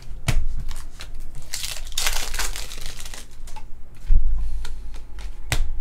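Trading-card pack wrappers crinkling and a stack of cards being flipped through by hand, with a few sharp clicks and a low bump about four seconds in.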